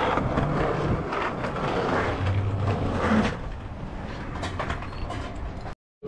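Skateboard wheels rolling over a concrete sidewalk, a rough rumble with clicks at the pavement joints, dropping off about three seconds in to quieter street noise.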